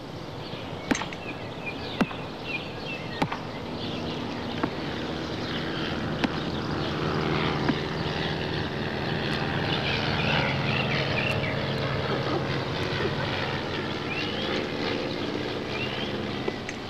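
Sharp knocks every second or so as plastic rackets hit a swingball tethered to a spring pole, heard over a steady low drone that swells toward the middle and eases off near the end.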